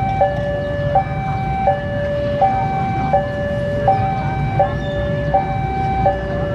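Electronic level-crossing warning alarm sounding a two-tone signal that alternates high and low about every 0.7 seconds, warning that a train is approaching. Under it runs the low rumble of an approaching diesel locomotive.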